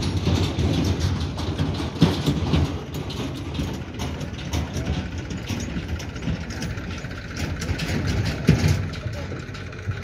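Diesel engines of a farm tractor and a JCB backhoe loader idling: a steady low rumble with rattling, and two louder knocks, about two seconds in and again late on.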